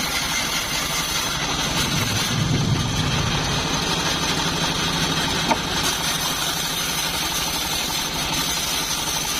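Homemade bandsaw mill running steadily, its drive engine humming at an even speed, a little stronger from about two to six seconds in, with one sharp tick about five and a half seconds in.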